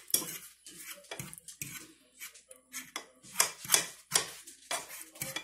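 Metal fork mashing soaked burnt bread in a small saucepan: irregular clinks and scrapes of the tines against the pan, a few a second.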